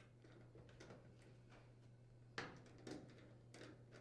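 Near silence: a low steady hum, with a few faint short clicks about two and a half and three seconds in.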